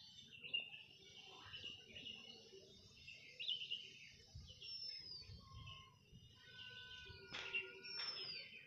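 Faint birds chirping and calling, short rising and falling chirps with a few steadier whistled notes. Two light clicks near the end.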